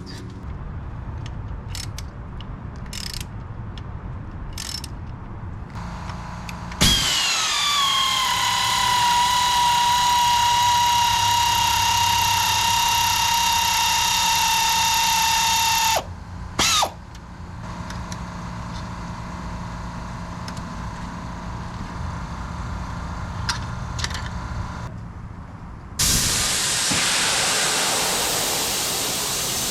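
Compressed-air equipment whining loudly from about 7 s to 16 s, its pitch dropping and then holding steady, with a short second burst about a second later. About 26 s in, a sudden loud, even hiss of escaping air begins, from a compressor hose that has burst.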